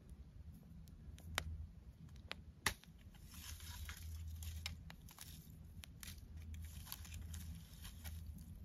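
Dry pack rat nest material crackling and snapping, with irregular rustles and two sharp cracks about one and a half and two and a half seconds in.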